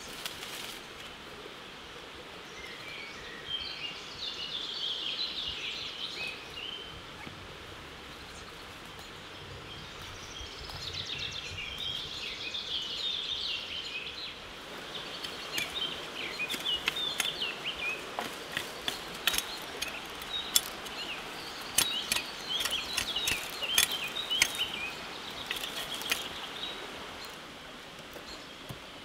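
Small birds singing in quick chirping phrases, in several spells with pauses between. From about halfway on, many short sharp clicks and taps sound along with them.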